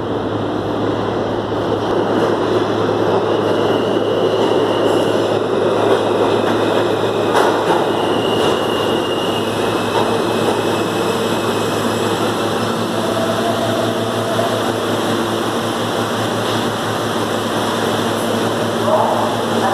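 R160 subway train pulling into the station and running along the platform as it slows to a stop: a steady rumble of wheels on rails. Brief high squeals come about four and eight seconds in, and a steady whine joins in from about halfway through.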